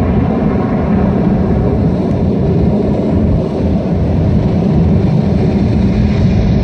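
A loud, steady low rumble from the light show's soundtrack played over loudspeakers.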